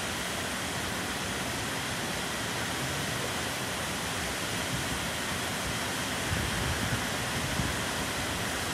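Heavy rain pouring down in a thunderstorm downpour: a steady, even hiss with no break. A brief low rumble comes in about six seconds in.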